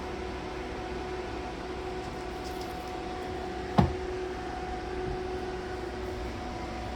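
Small portable fan motor running steadily inside an ice-box cooler, a steady whirring hum with a faint airy hiss. A single sharp knock about four seconds in.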